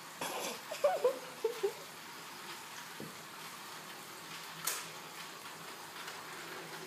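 Battery-powered Tomy Plarail toy train running on plastic track: a steady whirring hiss, with a few short pitched squeaks about a second in, a click near three seconds and a brief sharp rustle near five seconds.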